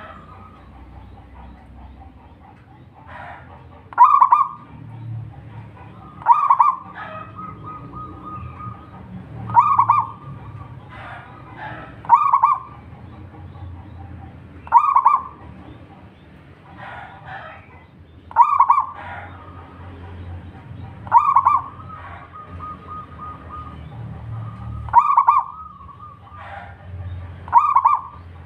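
Zebra dove (perkutut) cooing, loud call phrases repeating every two to three seconds, starting about four seconds in.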